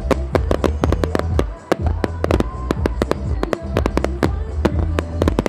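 Firework display: aerial shells bursting in quick, irregular bangs, several a second, over music with a heavy bass that sounds overpowering and boomy in the recording.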